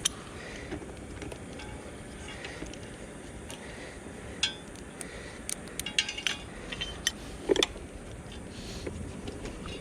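Small metal tools and parts clinking and clicking against each other in scattered taps while a dirt bike's carburetor is unbolted and taken off. The taps come thickest in the middle of the stretch.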